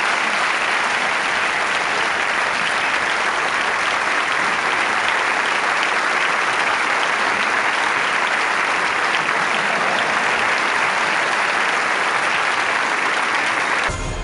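A large audience applauding steadily, dense continuous clapping. The applause cuts off abruptly near the end as outro music starts.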